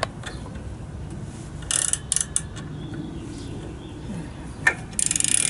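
Metal hand tools clicking and clinking on the clutch releasing-disc nut of a Harley-Davidson Panhead: a short run of clicks about two seconds in, a single clink, then another quick run of clicks near the end, over a steady low hum.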